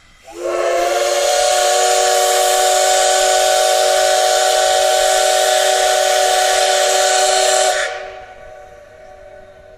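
Steam whistle of the C58 363 steam locomotive sounding one long blast, a chord of several tones together. It swells up in pitch at the start, holds steady for about seven seconds, then cuts off and fades away.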